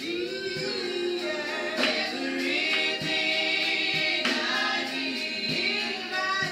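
Small gospel vocal group singing together through microphones, voices holding long notes in harmony and sliding between pitches.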